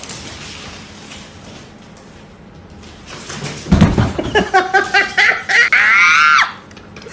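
Low room hiss, then a thump about halfway through as an alpaca falls on a tiled floor. A run of loud, high-pitched shrieking cries follows, ending in a longer cry that falls in pitch.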